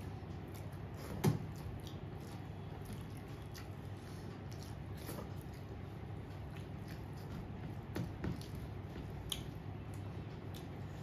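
Eating sounds: soft wet squishing of rice and curry being mixed by hand, with chewing and a few small clicks, over a steady low hum.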